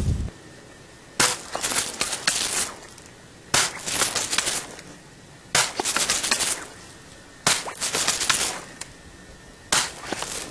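Gunfire in five quick volleys about two seconds apart, each a rapid run of sharp cracks.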